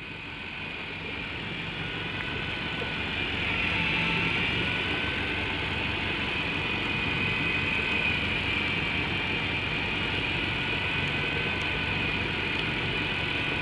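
Miya Epoch Command X8 electric fishing reel's motor whining steadily as it winds in line under the load of a hooked fish, with a low hum underneath. It grows a little louder over the first few seconds, then holds steady.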